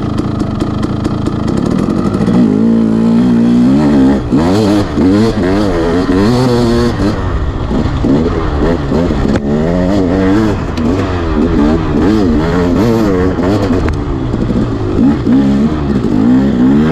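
Off-road dirt bike engine being ridden hard, revving up and down over and over as the throttle opens and closes every second or so.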